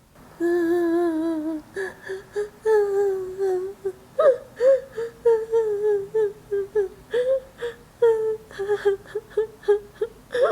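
A woman crying, recorded as a sound effect and played back through GarageBand's Radio Ready vocal preset. It opens with one long, quavering wail, then breaks into whimpers and short, repeated sobs.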